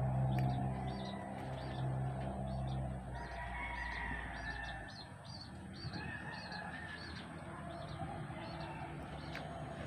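Chickens clucking and calling, over small birds chirping in quick, evenly repeated high notes. A low steady hum fades out in the first few seconds.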